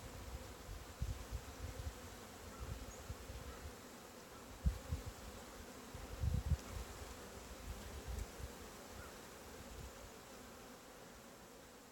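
Honeybees buzzing steadily around an open five-frame nuc hive, with a few dull low thumps, the loudest about five and six seconds in.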